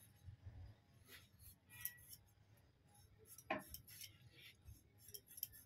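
Faint, scattered clinks and taps of kitchen utensils, with one slightly louder clink about three and a half seconds in.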